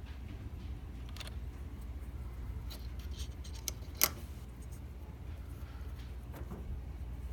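A few light clicks and handling sounds, with one sharper click about four seconds in, over a low steady hum.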